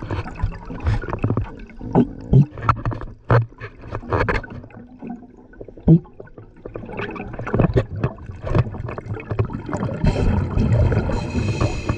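Air bubbles gurgling and bubbling underwater, recorded by a submerged camera, with frequent irregular knocks and clicks and a denser hissing rush of bubbles near the end.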